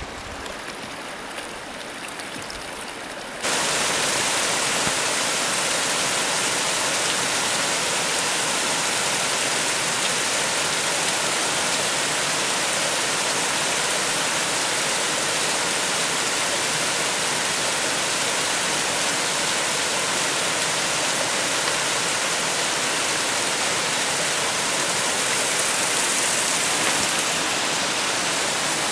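Waterfall and stream pouring down a narrow rock gully: a loud, steady rush of water that cuts in abruptly about three seconds in, after a fainter, quieter rushing.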